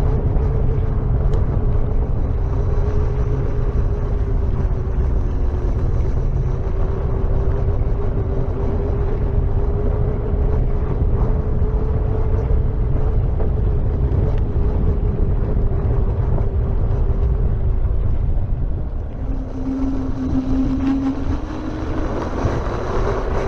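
KingSong S22 electric unicycle being ridden: a steady hub-motor whine over heavy wind rumble on the microphone. Near the end the whine drops in pitch and then climbs back as the wheel slows and speeds up again.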